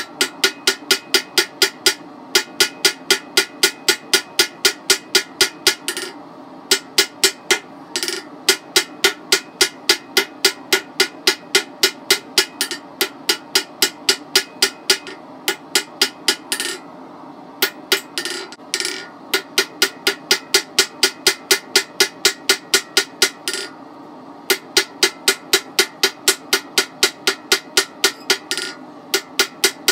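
Hand hammer striking a red-hot bar of high-carbon coil-spring steel on an anvil, drawing it out on the square: steady runs of about three blows a second broken by brief pauses, the anvil ringing between blows.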